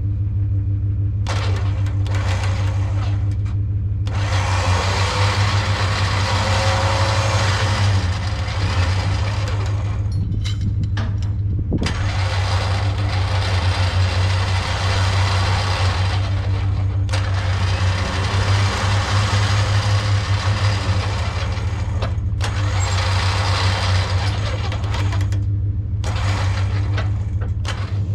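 HM130 portable band sawmill cutting English walnut: its engine runs steadily while the band blade saws through the log, a loud rushing cutting noise that breaks off briefly several times.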